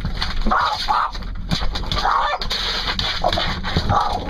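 Dog snarling and snapping at a moving rear windshield wiper in short noisy bursts, about five in all, with sharp knocks against the glass.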